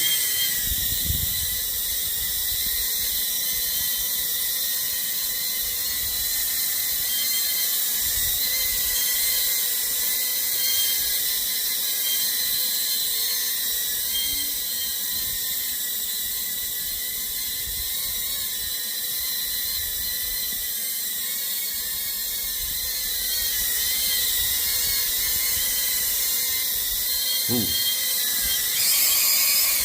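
Small GepRC FPV quadcopter flying, its motors and propellers giving a steady high-pitched whine that wavers slightly in pitch.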